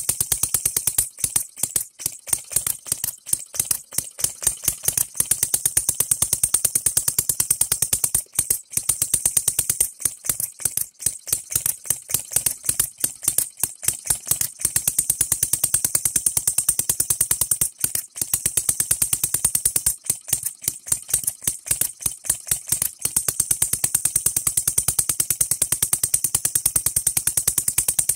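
Engine DIY three-stroke, non-compression model gasoline engine running, fired by a 12V buzz coil. It makes a fast, even string of sharp pops and rattles, with a few brief dips where it stumbles.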